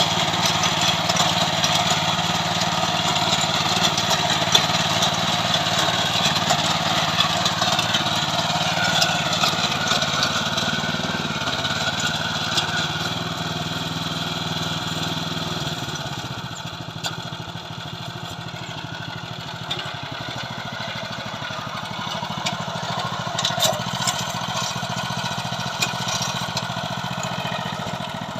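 Small engine of a KB-365 mini tiller running steadily, getting quieter a little past halfway.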